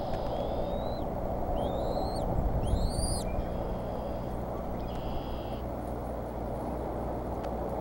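Young bald eaglets peeping in the nest: three short rising, thin whistled calls in the first three seconds, the last two the loudest, over a steady low rumble.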